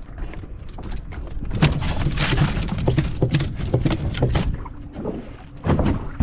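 Wind buffeting the microphone and water slapping against a small fishing boat's hull, with a run of short knocks and clatters in the middle and again near the end.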